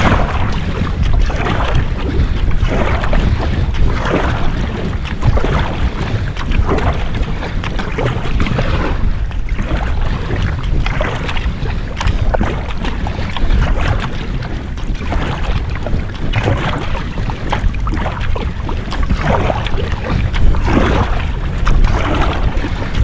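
Kayak paddle blades dipping and pulling through river water, a splashing swish a little more than once a second. Under it, a steady low rumble of wind on the microphone.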